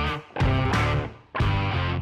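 Rock-style background music built on strummed electric guitar chords in short stabs, cutting out briefly twice and then coming back in.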